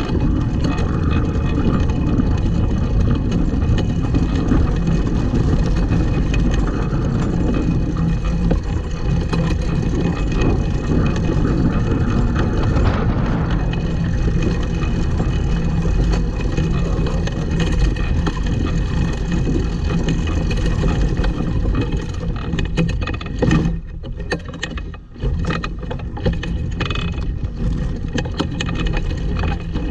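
Pedal go-kart rolling over rough, dry grass: a steady, noisy rattle and rumble of its wheels and frame, picked up by a camera mounted on the kart. It eases off briefly about six seconds before the end, then picks up again.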